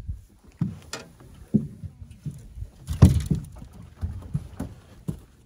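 A string of knocks and thumps on a bass boat's deck and hull, about ten of them, the loudest about three seconds in.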